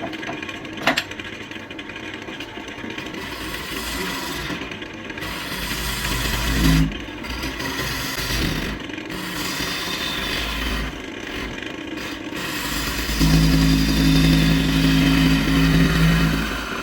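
Wood lathe running with a turning tool scraping against the spinning wood, a continuous rasping over the machine's low rumble. A single sharp click comes about a second in, and a louder stretch with a steady low hum begins about three-quarters of the way through.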